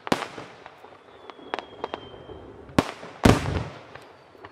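Aerial firework shells bursting: a sharp bang at the start, another near three seconds in, and the loudest just after it with an echoing tail, with smaller pops and crackles scattered between.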